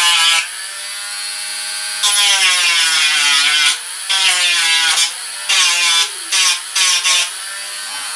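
Dremel Stylus cordless rotary tool running with a sanding wheel: a steady motor whine that dips in pitch and grows louder and grittier each time the wheel is pressed to the work. It makes two longer sanding passes, then several short quick touches near the end.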